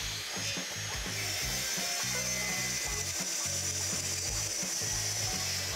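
Festool TS 55 plunge track saw, fitted with a 48-tooth blade, running at full speed with a steady high whine as it rips a 2-inch strip off a poplar board along its guide rail.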